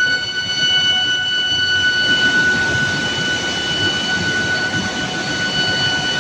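Steel billet induction heating furnace running: a steady high-pitched whine with overtones above it, over a constant rush of machinery noise.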